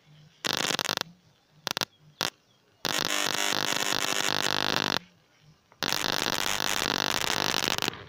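High-voltage arc from a microwave oven transformer and capacitor, buzzing and crackling harshly in bursts: one about half a second in, a few brief snaps around two seconds, then two long arcs of about two seconds each.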